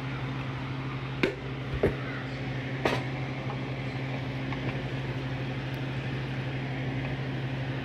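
Steady machine hum with three short, sharp knocks in the first three seconds.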